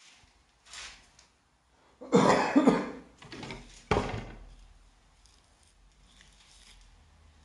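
A person coughing: a loud cough about two seconds in, then a second, sharper one a couple of seconds later.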